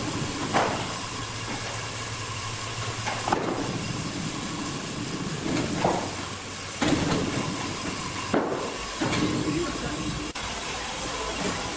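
Sawmill machinery running with a steady hiss, broken by a few sharp knocks and clatters, likely timber being handled.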